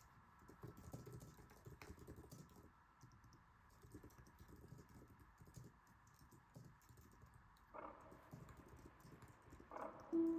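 Soft computer keyboard typing, a quick irregular run of faint keystrokes. Near the end, two short chime-like tones sound.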